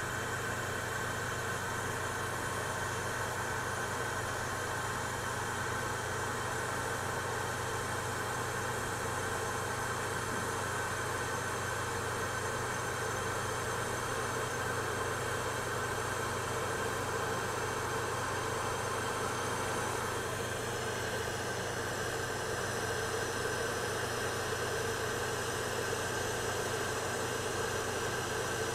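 Electric kettle heating water partway to the boil, the water at about 60 to 70 °C: a steady hum and rushing, with a slight change in its sound about twenty seconds in.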